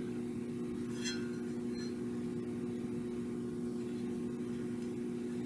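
Steady hum at two fixed pitches, with a brief light metallic ring about a second in as the small steel motor plate is handled.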